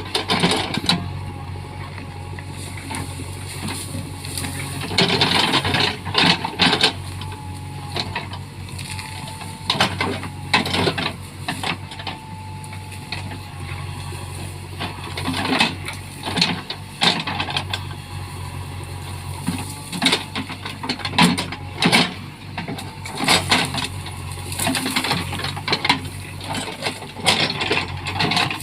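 JCB backhoe loader's diesel engine running steadily, with repeated bursts of sharp cracking and crashing as the machine breaks through trees and brush.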